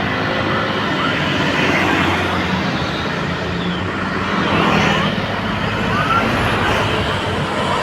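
Road traffic at the roadside: a large vehicle's engine running under steady tyre and road noise, with no horn melody.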